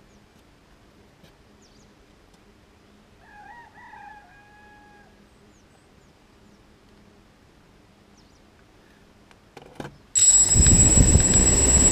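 A faint drawn-out call sounds once in the distance about three seconds in. About ten seconds in, the quadcopter's electric motors and propellers start suddenly and run loud and steady with a high whine.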